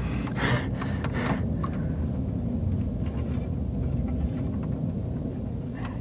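Low, steady rumble that shakes the floor, taken for a jet flying over, with a few light clicks in the first second or so.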